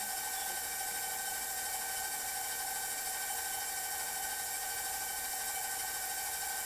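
Electric mixer motor running steadily at a medium-high speed, beating cake batter, with a constant whine.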